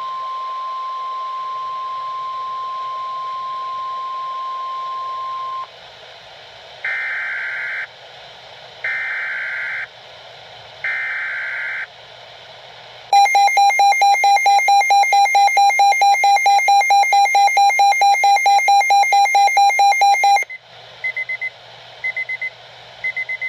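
Weather radio emergency alert signalling. A steady 1050 Hz attention tone plays for about five and a half seconds, followed by three one-second bursts of warbling digital SAME header data. About thirteen seconds in, a loud electronic alarm beeps in rapid, even pulses for about seven seconds, and three short data bursts follow near the end.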